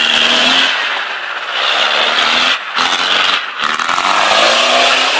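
Land Rover Discovery engine revving hard in about three rising surges, with short lifts between them, as it claws up a muddy slope on spinning mud tyres.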